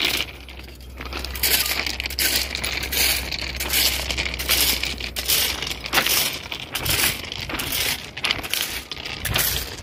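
Crushed-stone railway ballast scraping and clinking as a trackman digs and packs it beside a sleeper with a steel bar, in repeated strokes.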